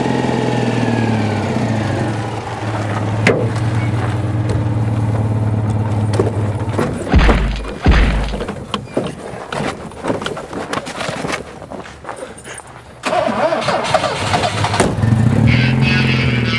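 Citroën 2CV6's small flat-twin engine running steadily, with two heavy thumps about seven to eight seconds in, then quieter knocks and rattles. The engine comes back loud about thirteen seconds in, its pitch rising near the end.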